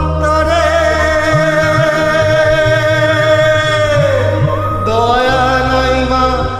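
A man singing a Bengali song, holding one long note that sags in pitch about four seconds in before he starts a new one, over a backing track with steady low notes.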